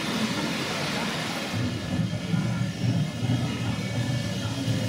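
Model trains running on the layout's tracks: a rough, low rumble that grows louder about a second and a half in, over a steady background hiss.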